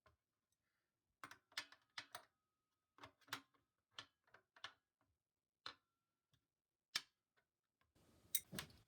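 Irregular sharp clicks and light taps, about a dozen spread unevenly over several seconds, from small hard objects being handled, with a brief rustle near the end.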